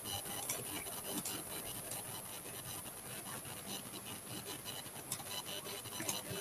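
Stylus scratching and rubbing across the surface of a graphics tablet during digital colouring, with a few scattered clicks.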